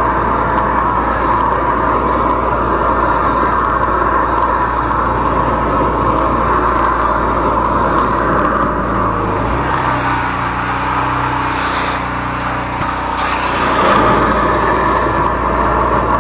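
13-horsepower high-pressure drain jetter running steadily, its engine and pump driving the jetting hose in the drain line. For a few seconds in the middle the running note changes to a lower hum, ending in a brief sharp hiss, then the steady running returns.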